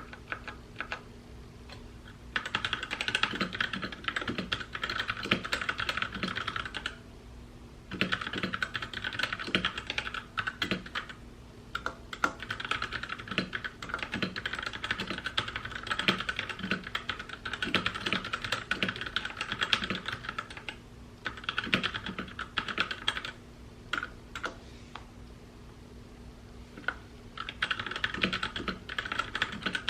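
Typing on a mechanical keyboard: fast runs of keystrokes broken by short pauses, with a longer lull about two-thirds of the way through.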